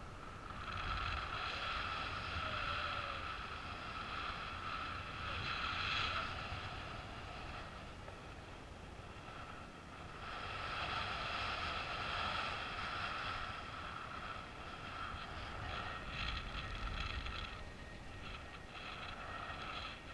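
Wind rushing over the camera of a paraglider in flight, a steady low buffeting, with a high steady tone that swells and fades, loudest in three stretches.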